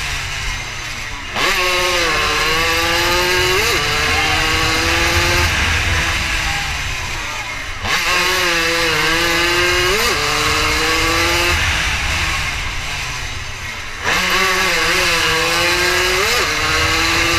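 80 cc racing motorcycle engine under a rider racing it: three times the engine note falls away as the throttle closes, then comes back louder and climbs steadily in pitch, with a short sharp blip about two seconds after each pick-up. Wind rushes over the bike-mounted microphone throughout.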